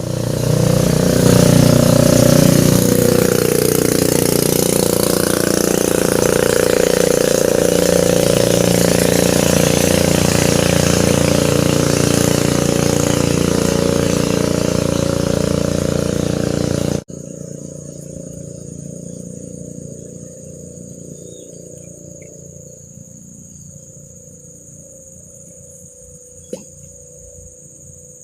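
A small engine runs loudly and steadily, its pitch rising for a moment about two seconds in. After about 17 seconds it cuts off abruptly and is replaced by a steady high-pitched insect drone, with a single short click near the end.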